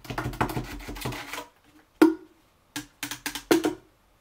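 A plastic CD case scraping and pressing sand down inside a small glass tank. It stops about a second and a half in, and from about two seconds in comes a run of about six sharp knocks of plastic against glass, the first the loudest.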